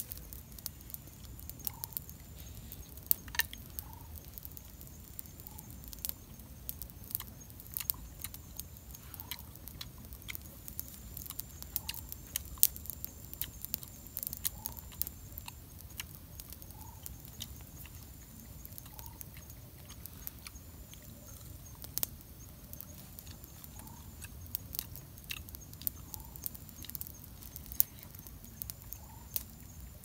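Small wood campfire crackling, with irregular sharp pops and snaps. A faint short call repeats about every one and a half seconds in the background.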